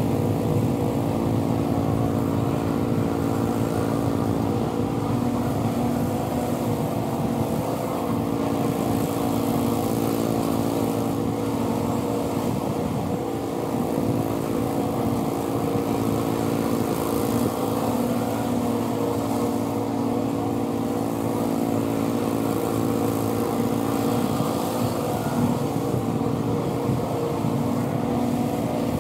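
Engine of a 36-inch Bunton walk-behind mower running steadily at a constant speed while the mower cuts tall grass.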